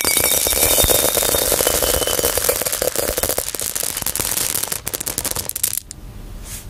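Pearls pouring into a cut-glass bowl: a dense, rapid clatter of many small clicks that stops about six seconds in.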